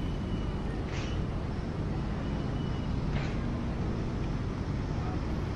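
Street traffic ambience: a steady low rumble of passing vehicles, with a couple of faint brief sounds about one and three seconds in.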